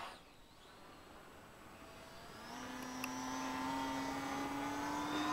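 Radio-controlled model airplane's motor and propeller whining overhead. A steady pitched hum comes in about two and a half seconds in and grows louder, its pitch creeping slightly upward.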